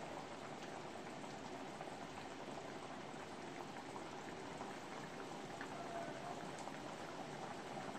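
Mutton curry gravy bubbling steadily in an uncovered pan over high heat, with scattered small pops, as its water cooks off.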